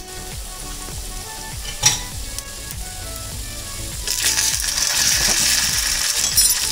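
Oil sizzling in a small kadai as mustard seeds, urad dal and chana dal fry for a tempering. There is one sharp knock about two seconds in. The sizzling grows louder from about four seconds in, as a spoon stirs the dal.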